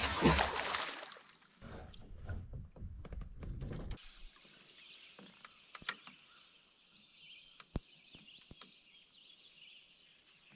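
Canoe on a calm lake: loud water noise in the first second, a low rumble with clicks for a couple of seconds, then a quieter steady high hiss broken by a few sharp knocks.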